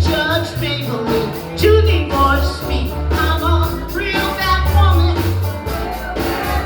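Live blues band playing: a steady bass line and drums under a lead melody line.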